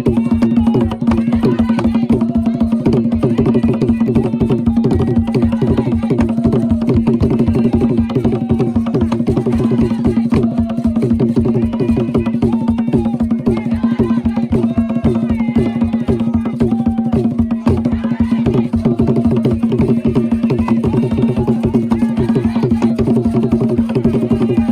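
Gule Wamkulu (Nyau) dance music: drums beating a fast, even rhythm of about five strokes a second, with voices singing over it.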